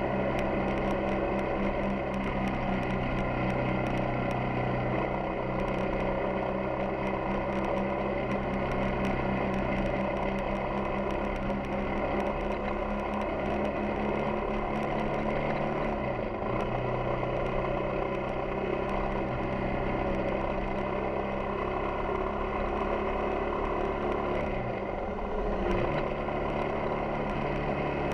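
Yamaha XTZ 250 Ténéré's single-cylinder four-stroke engine running steadily under way. Twice the engine note dips briefly and comes back up, once about halfway through and once near the end.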